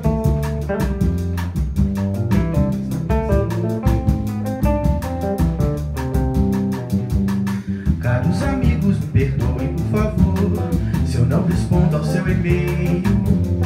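Live band of acoustic guitar, drum kit with steady cymbal strokes, and piano playing a Brazilian popular song; a man's voice starts singing about halfway through.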